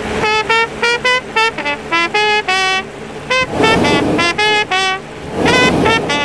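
Jazz trumpet playing a phrase of short, separated notes. Twice, once near the middle and once near the end, a loud rushing burst lasting under a second cuts in.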